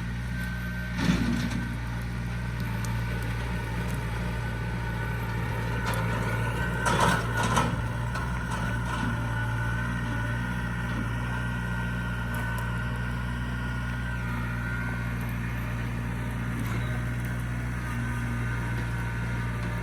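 Wood chipper's engine running steadily, with two brief louder bursts, about a second in and around seven seconds in, as material goes through.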